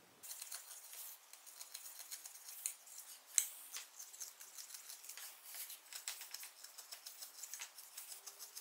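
Knife blade shaving and scraping along the edge of a wooden bow stave, cleaning up a patch of tear-out: a run of light, crisp, irregular scrapes and clicks, with one sharper click about three and a half seconds in.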